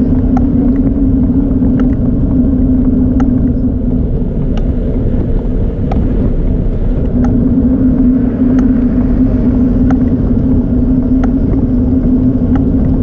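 Steady low rumble of wind and tyre noise on a camera riding on a moving bicycle over pavement, with a constant low hum and faint ticks about once a second.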